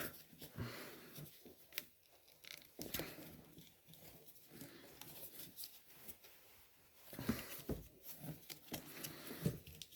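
Faint handling noise of a taped plastic vacuum hose being pushed back onto its fitting: scattered rubs, crinkles and small clicks, busier near the end, with the thick electrical tape making it a tight fit.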